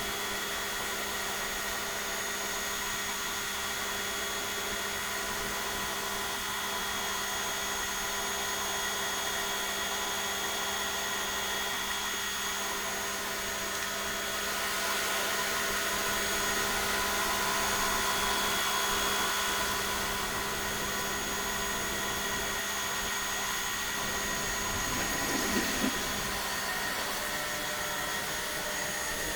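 Makita electric pressure washer running steadily, its motor and pump humming under the hiss of the water spray. It grows a little louder for a few seconds around the middle.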